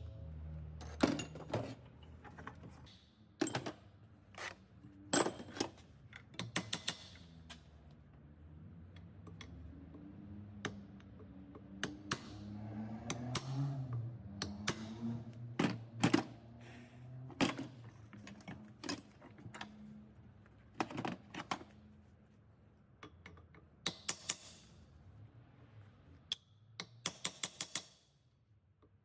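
Metal hand tools clicking and knocking at irregular intervals during repair work, with a quick run of clicks near the end.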